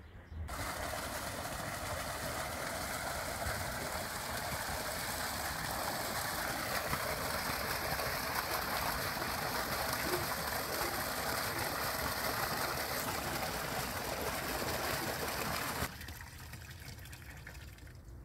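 Water gushing from a valved outlet pipe and splashing into a concrete basin, a steady rushing that cuts off suddenly about two seconds before the end.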